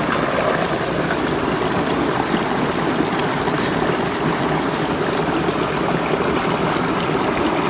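Steady rush of running water, like a nearby stream or water pouring along the field terraces.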